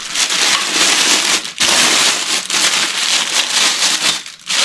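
Plastic packaging crinkling and rustling loudly, with two brief pauses.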